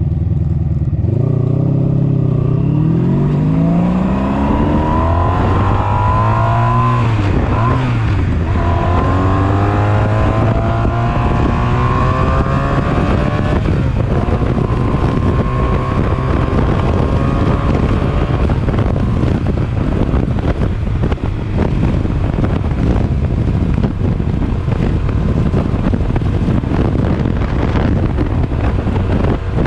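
1983 Honda Sabre 750's V4 engine accelerating hard at speed, run high in the revs to clear out carbon. Its pitch climbs for several seconds, dips at a gear change about seven seconds in, climbs again and then holds steady. After that, wind buffeting on the microphone grows and buries the engine.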